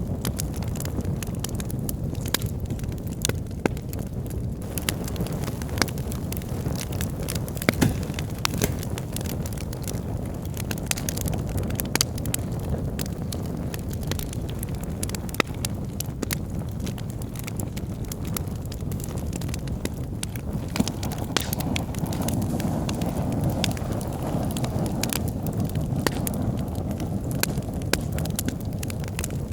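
Wood fire burning in a fireplace: a steady low rumble of flames with many sharp, irregular crackles and pops from the burning logs.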